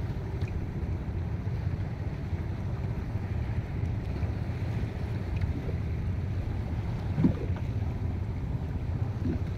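Wind buffeting the microphone over shallow sea water lapping around a man wading beside a boat, with one short, louder sound about seven seconds in.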